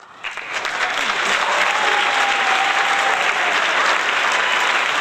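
A crowd clapping and cheering, swelling up over the first second and then going on steadily, with one long held cheer or whistle in the middle.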